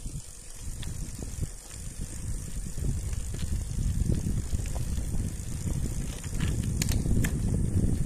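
Bicycle rolling on an asphalt road: low tyre rumble and wind buffeting the microphone, growing louder from about three seconds in, with a few sharp clicks near the end.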